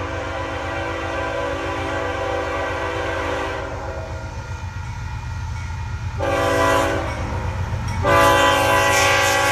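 Nathan K5HL-family five-chime locomotive air horn sounding: a long blast that stops about a third of the way in, a short blast a couple of seconds later, then another long blast starting near the end. A steady low rumble of the train runs underneath.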